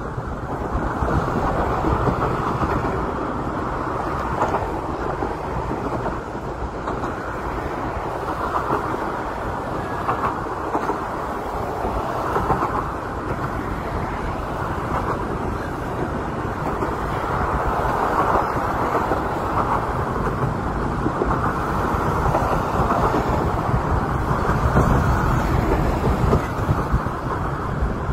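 Steady rumble of city trains and road traffic, even and unbroken with no single standout event.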